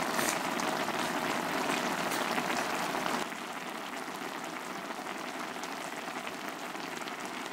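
Budae-jjigae (Korean army stew) bubbling at a steady boil in a wide pan, a dense crackling patter that drops quieter about three seconds in.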